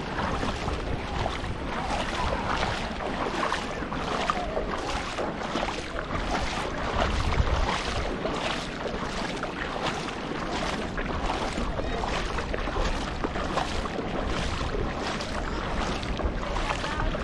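Shallow sea water sloshing and splashing close to the microphone in a steady wash of noise with many small splashes, mixed with a low wind rumble on the microphone.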